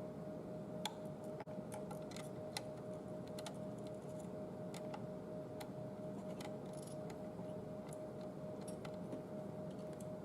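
Scattered small clicks and light taps, irregular and a few a second at most, over a steady faint hum with a thin constant tone.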